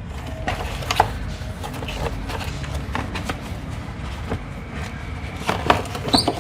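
Cardboard box and packaging being handled and opened: scattered knocks and clicks over rustling, busier near the end as the contents are taken out.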